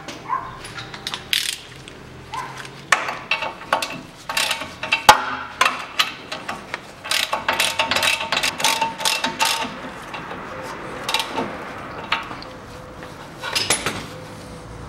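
Hand ratchet wrench clicking in runs of quick strokes as the lower ball joint nut is tightened, with a few sharper metal knocks between runs.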